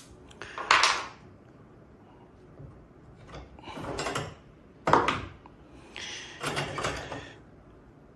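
Katana lock decoder worked in an HU66 generation 2 car lock, the tool being tensioned and jiggled, giving a few short metallic clicks and scrapes with the sharpest click about five seconds in.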